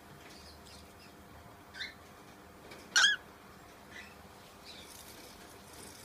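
Young cockatiel giving a few short chirps, with one much louder call about three seconds in.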